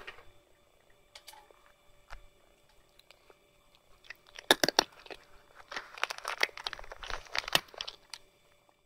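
A tabby cat chewing crunchy food: a quick run of crisp crunches starts about four seconds in and goes on for about four seconds, after a few scattered clicks.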